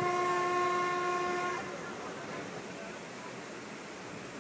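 Train horn sounding one steady note, heard from inside a moving passenger coach over the train's running rumble. The horn cuts off about a second and a half in, leaving the steady noise of the coach on the rails.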